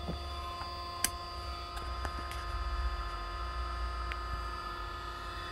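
Generator running with a steady low hum and a few steady whining tones. One sharp click about a second in.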